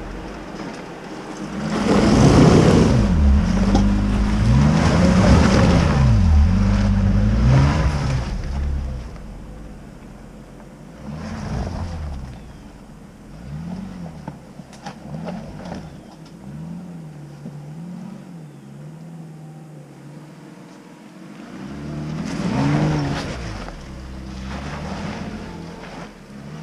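Jeep Cherokee Trailhawk engines revving up and down in repeated surges as the 4x4s crawl up a rocky ledge climb. The revving is loudest for several seconds early on, softer and farther off in the middle, and swells again near the end as the next Jeep comes close.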